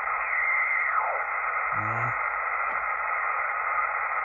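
Steady static hiss from a Kenwood TS-440S HF transceiver's speaker in single-sideband (USB) reception while it is tuned slowly across the 17-metre amateur band. A faint whistle glides down in pitch as the dial passes a carrier about a second in. No station comes through: the band is dead in a geomagnetic-storm radio blackout.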